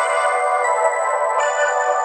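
Background music: sustained electronic chords with no bass or beat, changing twice.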